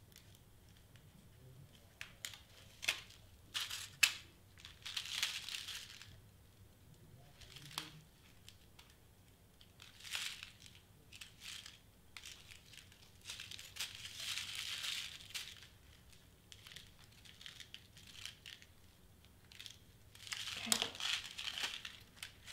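Small clear plastic containers of craft sequins and beads being handled and pried at: scattered sharp plastic clicks and several short crinkling, rattling bursts.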